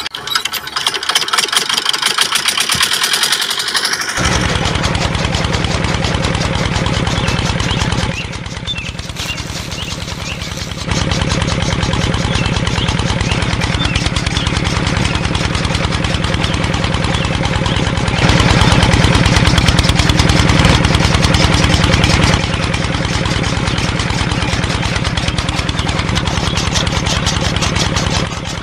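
Miniature diesel engine being hand-cranked with a fast clatter, then catching about four seconds in and running with a steady rapid chug.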